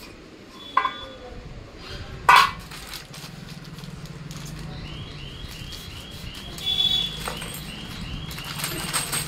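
Metal parts of a sewing-machine stand knocking sharply on a concrete floor, twice in the first few seconds, the second knock the loudest; later a plastic bag of fittings rustles and clinks. Under it runs a steady low hum, and from about halfway a faint chirp repeats about twice a second.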